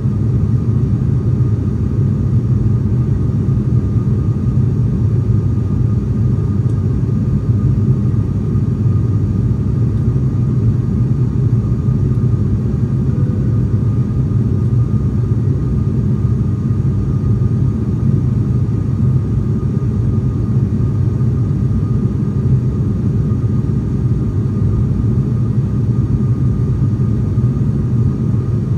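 Cabin noise inside an ATR 42 twin-turboprop airliner in flight: the steady low drone of its propellers and engines, with a thin constant whine above it.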